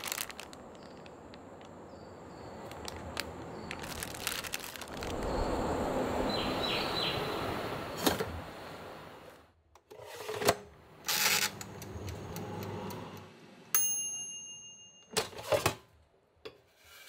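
Handling sounds: a plastic food wrapper rustling, several clicks and knocks, then a single electronic beep of about a second from the air fryer near the end, followed by the clatter of its basket being pulled out.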